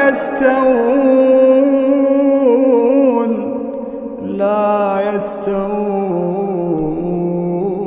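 A male Quran reciter in melodic tajwid recitation, drawing out the word 'lā' in long ornamented phrases. The line is broken by a short pause for breath about three to four seconds in, then goes on as a second held phrase.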